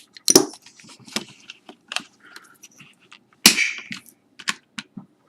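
Irregular plastic clicks and knocks as the multimeter stand's clamp and rail are handled, with the loudest knock about three and a half seconds in.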